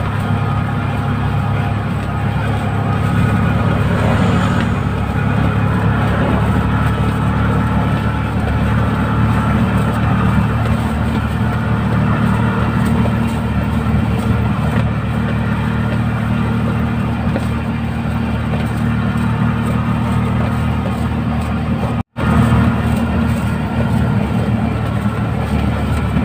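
Engine of a three-wheeled auto-rickshaw running steadily on the road, heard from inside its cab as a constant low drone. The sound drops out for an instant about 22 seconds in.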